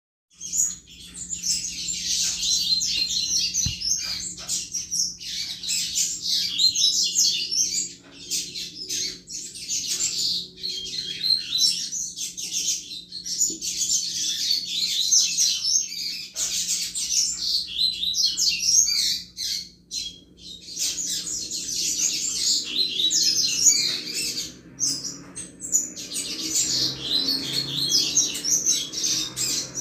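Double-collared seedeater (coleiro) singing the fast 'chuva' song: long runs of rapid, high chirped notes with a few short pauses between phrases.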